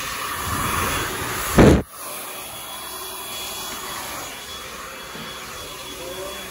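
Hand-held hair dryer blowing steadily, then cut off about two seconds in, just after a loud bump. A fainter steady rushing noise continues afterwards.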